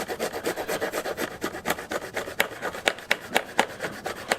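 Hacksaw cutting a square out of a car's rear trim piece for a hitch receiver, in rapid, uneven back-and-forth scraping strokes.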